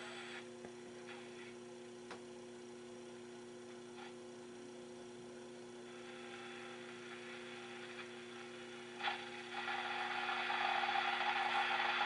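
Philco 39-30 tube radio's loudspeaker on the shortwave band: faint static with two steady low tones and a few clicks. About nine and a half seconds in, a louder steady, grating signal comes in, which the listener takes for some type of digital communication.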